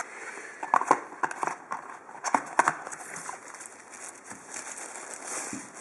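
Handling of a cardboard box and its packaging: irregular rustling with scattered light clicks and knocks.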